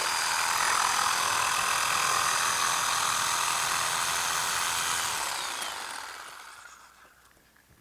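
Power saw running steadily, then switched off about five seconds in and winding down to a stop with a falling pitch.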